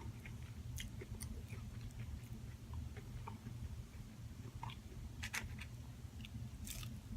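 A person chewing food close to the microphone, with scattered soft mouth clicks and small crackles, over a low steady hum.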